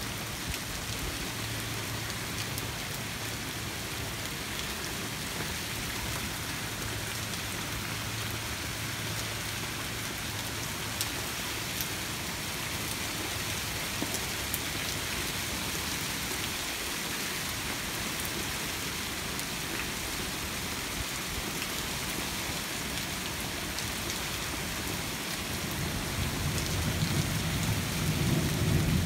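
Hard rain falling steadily in a thunderstorm, a continuous hiss. Near the end a low rumble of thunder builds up and grows louder.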